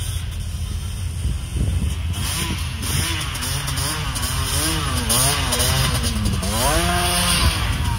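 Sport quad's engine revved hard over and over from about two seconds in, its pitch rising and falling roughly once a second, over a steady low rumble.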